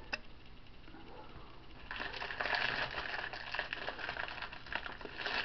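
Hands handling small locksmith tools and their packaging: one sharp click, then from about two seconds in a steady crinkling rustle of many small crackles.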